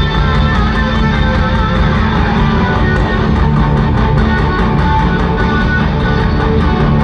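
A live rock band playing an instrumental passage: electric guitar over bass and drums, with a steady run of evenly spaced ticks high up.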